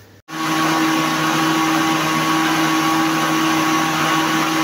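Westpoint countertop blender running at a steady speed, blending milk, bananas and strawberries into a smooth milkshake. The motor cuts in suddenly just after the start and holds an even pitch.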